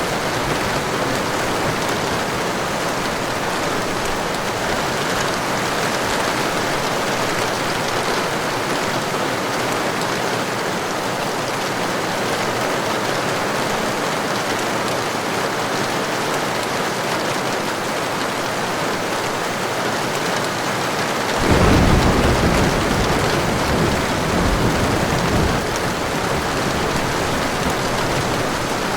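Heavy rain falling steadily, with a roll of thunder breaking in suddenly about three quarters of the way through, rumbling for a few seconds and dying away.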